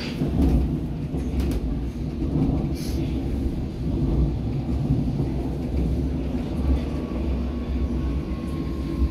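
Hamburg DT5 U-Bahn train running through a tunnel, heard from inside the car: a steady low rumble of wheels on rail with a few light rattles. Near the end a thin motor whine comes in and falls slightly in pitch as the train slows into a station.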